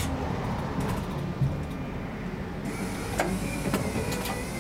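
Tram running slowly with a steady low rumble of motors and wheels on rails. In the second half there are a few sharp clicks as the wheels pass over the junction's switches and crossings.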